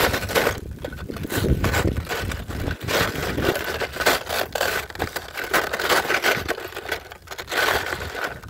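Crunching and scraping of brittle cooled lava rock underfoot, in many irregular strokes, as someone walks over loose lava crust.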